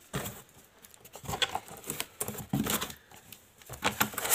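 Cardboard box flaps and polystyrene foam packing being handled as the box is opened: irregular rustling, scraping and light knocks.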